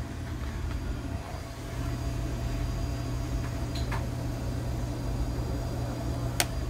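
Steady low machine hum of running equipment, with one sharp click about six and a half seconds in.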